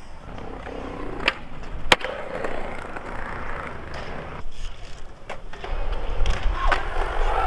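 Skateboard wheels rolling over concrete, with several sharp clacks of the board hitting the ground; the loudest comes about two seconds in, and a deep rolling rumble builds near the end.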